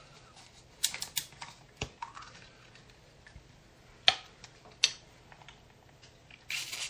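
A handful of light, sharp clicks and taps: a quick cluster about a second in, two more single ones around four to five seconds, and a brief rustle near the end.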